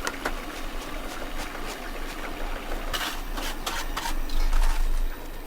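Bananas deep-frying in hot oil, a steady sizzle, with a few sharp clicks about three seconds in.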